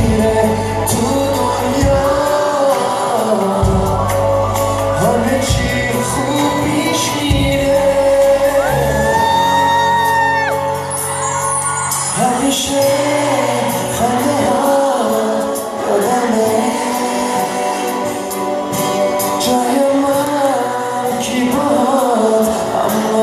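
Live Persian pop music: a male singer singing into a handheld microphone over a full band with drums, heard from the audience in a large hall. About nine seconds in he holds one long note for about two seconds.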